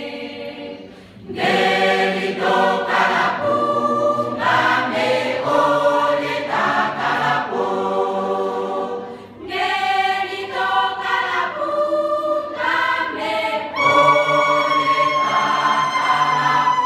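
Large mixed church choir singing unaccompanied, in phrases with short breaks about one and nine seconds in. Near the end a long high note is held, sliding slowly lower in pitch.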